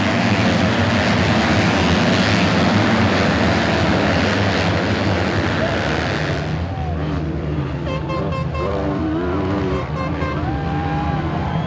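Motocross bikes' four-stroke engines racing: a dense mix of engine noise at first, then about six and a half seconds in the sound changes to individual engines revving up and falling away.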